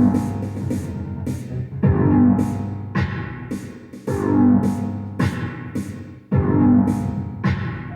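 Semi-ambient electronic keyboard music from synthesizers and a sampler, with a piano-like chord pattern that repeats. A new attack comes about every second, and each fades before the next.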